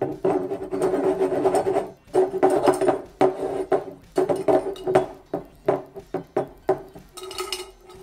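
Glass jars being handled and set down on a table: a string of short clinks and knocks, over a steady droning tone that breaks off every couple of seconds.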